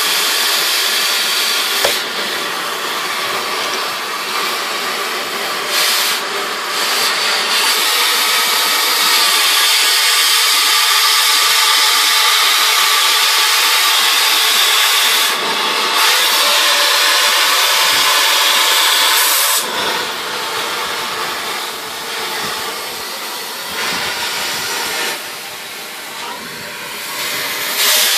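Oxy-fuel cutting torch hissing steadily as it cuts through steel exhaust heat exchangers. The hiss drops briefly a few times and runs softer for several seconds near the end.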